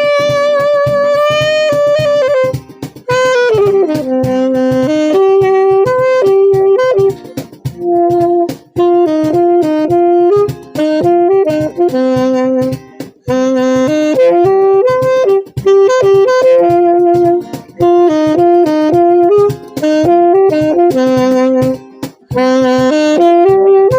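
Saxophone playing a slow song melody, opening on a long held note with vibrato and then moving in short stepping phrases, over a steady strummed guitar accompaniment.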